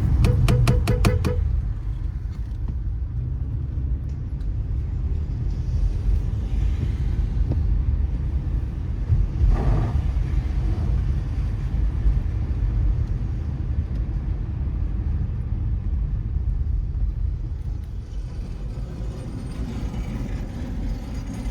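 Car driving on a wet road, heard as a steady low rumble of engine and tyres. In the first second or so there is a rapid train of about nine short, sharp pulses, and about ten seconds in comes a brief swish.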